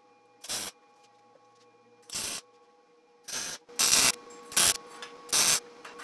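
MIG welder laying short tack welds on a steel bicycle fork tube: about six brief bursts of welding noise, each under half a second, coming closer together in the second half, over a faint steady hum.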